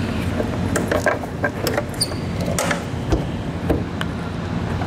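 Plastic clicks and knocks, irregular and scattered, as bulb sockets are twisted and pulled out of a pickup's taillight housing, over a steady low hum.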